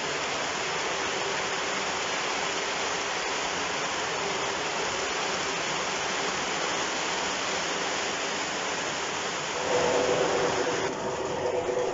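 O scale model tank cars rolling fast along the track, a steady rushing rumble of wheels on rail. About ten seconds in, as the last cars clear, it gets louder and a pitched sound with several tones comes in.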